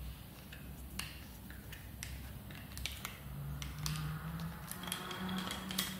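Light handling clicks and ticks of a Shimano STI brake-shift lever and its handlebar clamp bolt being worked with a hex key, with a faint low hum in the second half.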